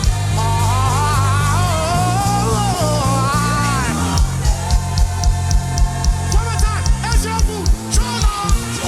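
Live gospel band playing an instrumental passage. A lead instrument glides and bends in pitch over sustained bass for about four seconds, then a steady kick-drum beat of about three strokes a second comes in with cymbal ticks over held chords.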